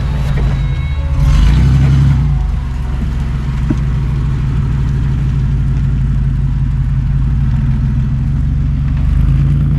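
GMC Safari 4x4 van's V6 engine working under load as the van crawls over a rocky trail obstacle, with a steady low rumble that swells briefly about a second in and again near the end.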